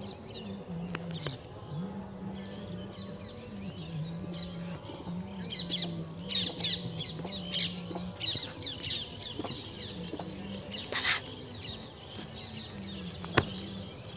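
Many small birds chirping and calling in bursts over a low hum that steps up and down in pitch. A single sharp click sounds near the end.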